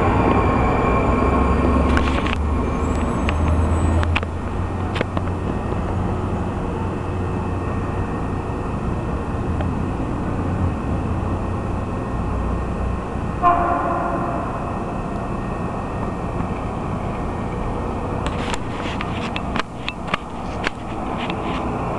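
Washington Metro train rolling slowly into the station with a steady rumble and a whine that fades over the first few seconds. A short horn toot sounds about halfway through, and a run of sharp clicks and clunks comes near the end.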